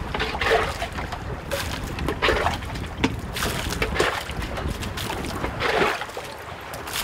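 Water splashing and sloshing in repeated swishes, roughly one a second, over a low wind rumble on the microphone.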